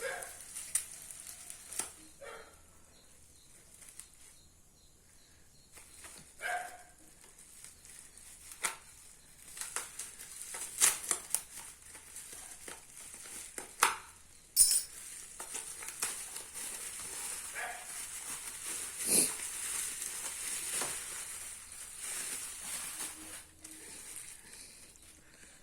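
Intermittent clicks, taps and rustling of hands handling a package being unboxed, with two brief squeaks.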